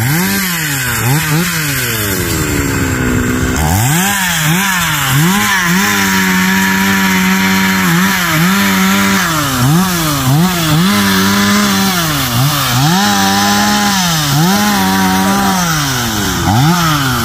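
Husqvarna 365 two-stroke chainsaw running at high revs while cutting into a tree trunk. Its engine note keeps dipping and climbing back up, with one long drop in the first few seconds before it revs up again.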